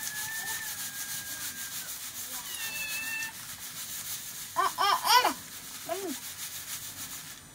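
Rice grains hissing and rattling in a perforated metal sieve as it is shaken back and forth, in an even rhythm. About five seconds in, a quick string of short, high pitched calls is louder than the sifting.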